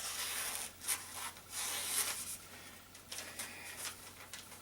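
Several short, scratchy rubbing strokes, as the edge of a bowie knife is tried for sharpness.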